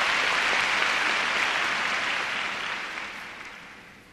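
Large arena audience applauding steadily, the applause dying away over the last two seconds.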